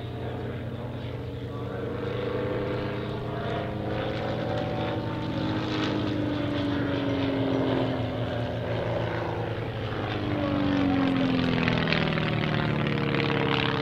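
Van's RV-8 light aerobatic plane's piston engine and propeller flying an aerobatic display. The engine note slides down and then up in pitch as the aircraft manoeuvres, growing louder about two seconds in and loudest near the end.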